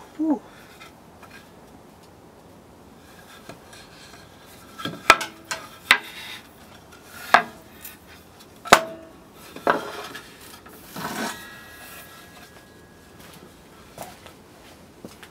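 Wooden board pieces being handled on a table saw's metal table: a brief squeak at the start, then a handful of sharp wooden knocks and clacks spread over several seconds and a short scrape of wood sliding across the table.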